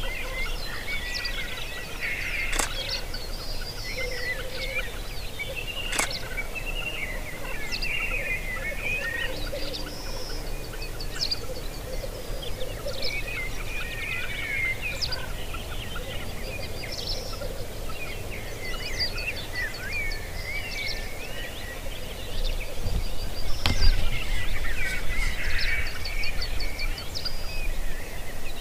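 Black grouse lek: the males' low bubbling song runs on and on, with many higher chirping bird calls over it. A couple of sharp clicks come in the first few seconds, and a low rumble near the end.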